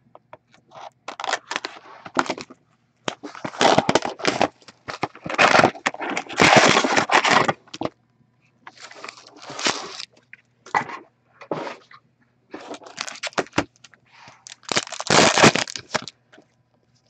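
Plastic shrink-wrap on a hockey card box being slit and torn off, then a foil card pack being torn open: irregular bursts of crinkling and tearing plastic, loudest near the middle and again just before the end.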